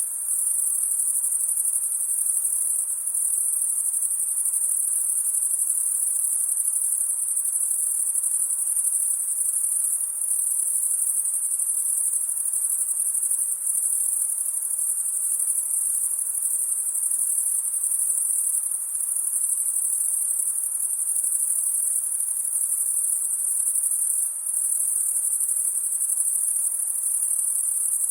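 A dense chorus of crickets trilling steadily at a high pitch, with no breaks, as on a summer night.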